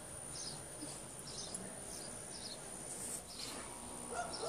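Faint outdoor background with small birds chirping every half second or so, over a steady high-pitched whine.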